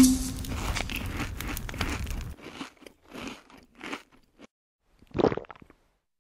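Chewing and crunching sound effects for a clay caveman eating a roasted drumstick: a few separate crunchy bites, the loudest about five seconds in. A steady background sound under the first two seconds cuts off suddenly.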